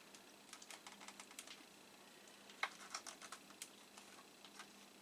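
Faint, scattered light clicks and taps of plastic as a hard drive is worked loose from the Macintosh LC case's plastic retaining tabs, in two short clusters.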